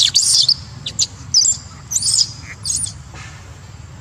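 A newborn macaque crying: several shrill, high-pitched squeals in short bursts.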